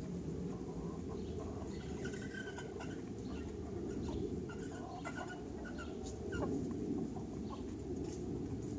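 A flock of chickens clucking in short, scattered calls, over a steady low rumble.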